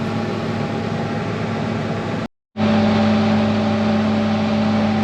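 Tractor engine running at a steady speed while driving a grain cart's unloading auger, a constant drone. The sound cuts out for a moment a little past halfway and comes back louder.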